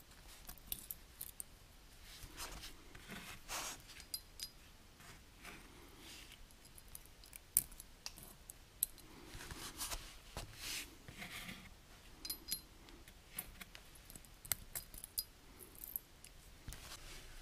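Small steel rollers and coil springs being fitted by hand into the cam-ramp pockets of a tractor transmission's one-way overrunning clutch cage. The sound is faint, irregular metal-on-metal clicks and short scrapes.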